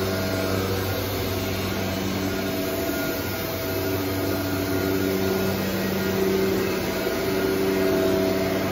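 Becker VTLF rotary-vane vacuum pump running with a steady hum while it pulls vacuum on the CNC router's vacuum table. It grows a little louder near the end.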